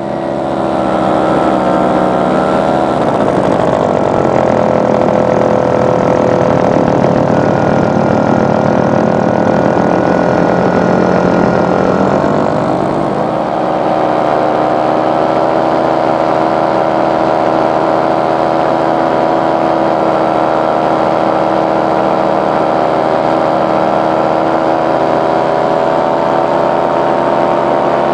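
Powered paraglider's paramotor engine and propeller running hard, swelling up in the first second, then a steady loud drone whose pitch dips a few seconds in and rises again about halfway through.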